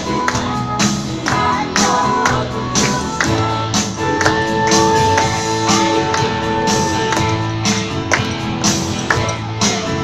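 Upbeat dance music with a steady beat.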